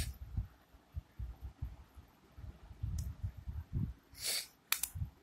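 Handling noise from a smartphone being held and turned in the hands: irregular low thumps and rubbing, a sharp click at the start, a brief rustle a little after four seconds, and two quick clicks near the end.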